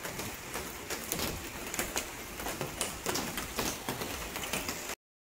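Steady rain falling, with many sharp, irregular drop ticks close by; it stops abruptly just before the end.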